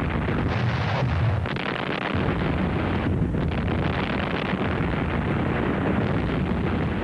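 Heavy naval guns firing a shore bombardment: a loud, continuous barrage of gunfire and explosions that blends into one steady din with no clearly separate shots.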